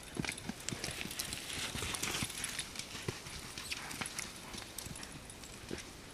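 Horse's hooves thudding on soft arena dirt at a lope, in an uneven run of dull beats.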